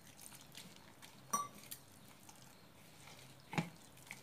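A hand mixing wet gram-flour batter in a glass bowl, with faint squishing and two short clinks, one about a second in and a louder one near the end.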